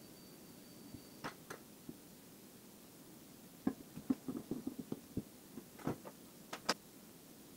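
Light metallic clicks and taps of steel pliers and a small metal ring against a rusty steel block. There are two clicks a little over a second in, a quick run of taps in the middle, and a few more near the end.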